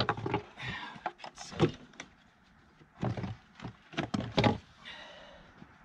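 Irregular knocks and clunks of metal parts as a car engine's intake manifold is worked loose and lifted out of the engine bay, with a busier run of knocks a little past halfway.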